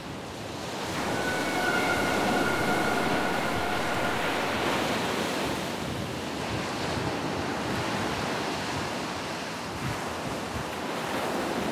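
Ocean surf washing steadily, with wind.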